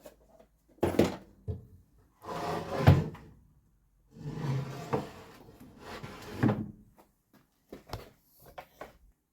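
Handling noises: a few knocks, two longer stretches of scraping or sliding, each with a knock in it, then a cluster of light clicks near the end, like a case or drawer being opened and closed.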